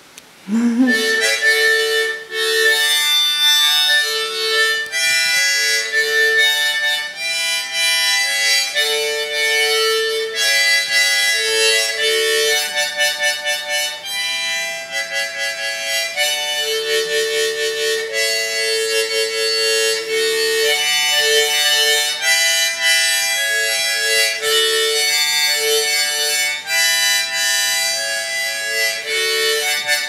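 Harmonica being played: a tune of short and held notes, often several at once as chords, starting about a second in with brief pauses between phrases.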